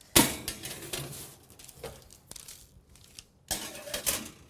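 Metal sheet pans being slid into an oven: a sharp knock just after the start, scattered clinks and scrapes, and another clatter of metal about three and a half seconds in.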